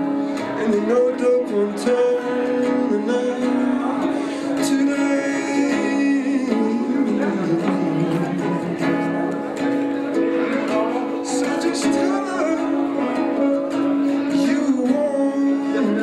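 Live acoustic song: a guitar played steadily under a man's singing voice, with held notes throughout.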